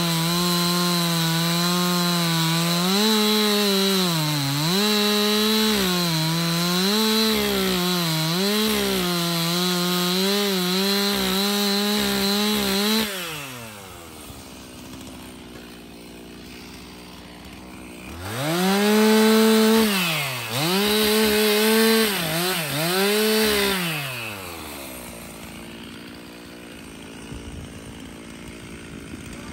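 Stihl MS 362 C two-stroke chainsaw cutting old boards, its engine pitch dipping and recovering again and again under load; the bar and chain are old and badly stretched, and the chain no longer sharpens properly. About 13 seconds in it drops to idle, runs up three more times in short surges, then settles back to idle.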